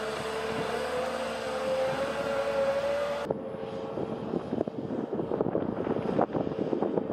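A loaded John Deere forwarder's diesel engine running with a steady drone that rises slightly in pitch. About three seconds in, the sound cuts abruptly to irregular knocking and crackling.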